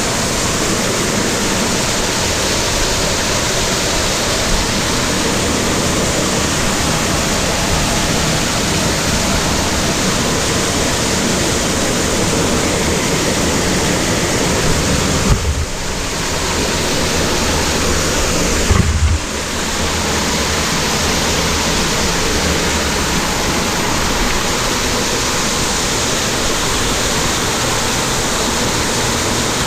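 Underground waterfall in a cave, a steady, loud rush of falling water close to the microphone. Two brief low thumps come near the middle, each followed by a short dip in the rush.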